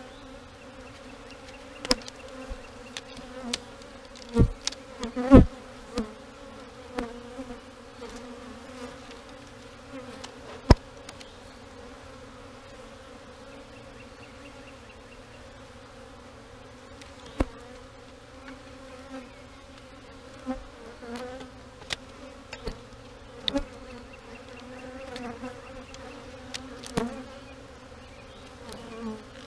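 Agitated honeybees buzzing steadily around an open hive frame whose comb has just broken off. A dozen or so short sharp clicks and knocks stand out over the buzz.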